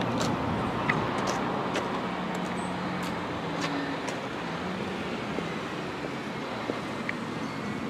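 Double-decker bus approaching with its engine running steadily over street traffic noise, with a few light clicks.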